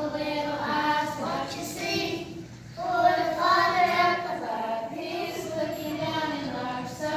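Young children singing a song together, with a brief break about two and a half seconds in.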